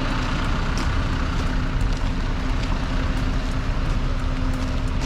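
A large engine running steadily with a constant hum under a wash of noise, with a few faint clicks.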